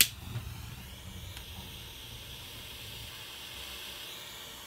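A sharp click right at the start, then a wind-resistant jet-flame BBQ lighter's flame burning with a steady hiss as it heats its copper-wire soldering tip.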